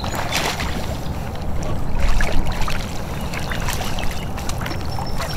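Rushing river water with splashes as a hooked smallmouth bass thrashes at the surface beside a kayak.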